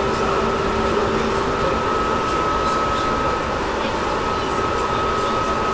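Tobu 10000 series electric train motor car running between stations, heard from inside the car above its main controller: a steady rumble of wheels on rail with a steady high whine, and the car's air conditioning running.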